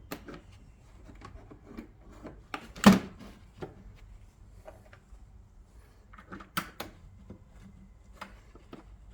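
Plastic under-bonnet trim cover on a Jaguar XK being handled and pushed back into place: scattered light clicks and rubs, with a sharp snap about three seconds in and another near six and a half seconds as the clips are pressed home.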